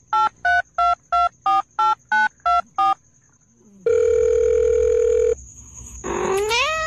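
Telephone keypad touch-tones: about ten quick two-tone beeps like a number being dialled, then a steady ringing tone for about a second and a half. Near the end comes a short rising call.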